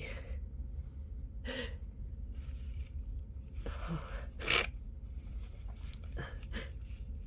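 A person's sharp, gasping breaths: the hitching build-up before a sneeze, a few seconds apart, with the loudest and sharpest burst about four and a half seconds in.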